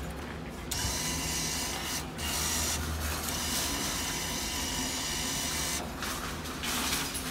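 Banknote acceptor of an automatic photo booth drawing in a 1,000-yen note with a steady mechanical whirr and the paper rubbing in the slot, from about a second in to about six seconds, broken briefly around two seconds, with a shorter burst near the end.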